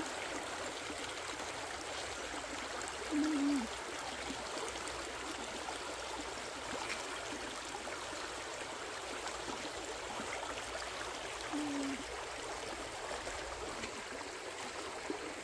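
Steady rushing of flowing water, like a nearby stream, with a short hummed voice sound twice, about three seconds in and near twelve seconds.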